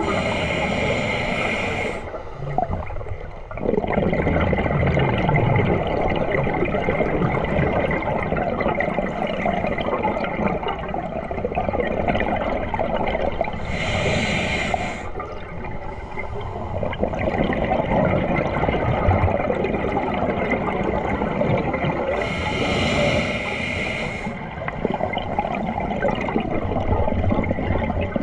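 Underwater sound heard through a waterproof camera housing: a steady rush and low rumble of water, broken three times by bursts of hissing bubbles from a scuba regulator exhaling.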